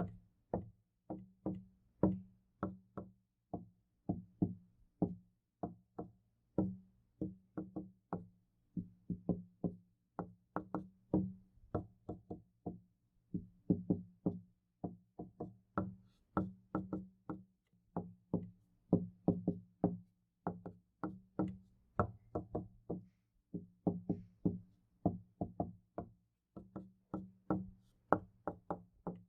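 Knuckles knocking on a wooden door, over and over in quick runs of about three knocks a second, each with a short, hollow ring.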